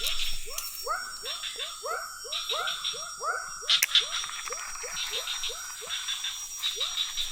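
A quick run of short, squeaky, rising cries from small animals, two to three a second and overlapping, with a sharp click about four seconds in.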